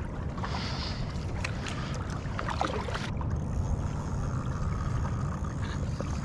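Steady wind rumble on the microphone over open water, with light water sounds around the paddleboards and a few faint clicks.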